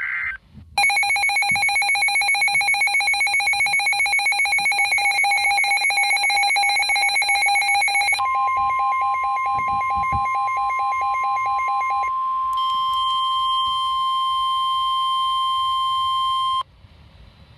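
Emergency Alert System alert tones: after a brief beep, a rapid, evenly pulsing electronic tone sounds for about seven seconds, then a steady higher tone joins it and the pattern changes twice before all the tones cut off suddenly near the end. They signal that a severe thunderstorm warning is about to be read.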